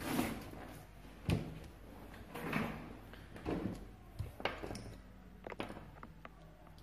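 Paper cards being handled and set down on a cloth-covered table: a series of short knocks and rustles, about one a second, over a faint steady low hum.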